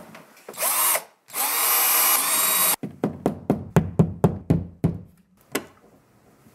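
Cordless drill/driver driving a screw into a thermostat base plate. The motor starts with a short burst, then runs steadily for about a second and a half, then gives a quick train of clicks, about five a second: the clutch slipping as the screw seats.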